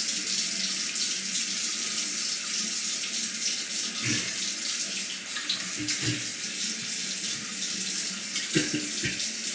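Bathroom tap running steadily into a sink while a razor is rinsed, with a few soft knocks about halfway through and near the end.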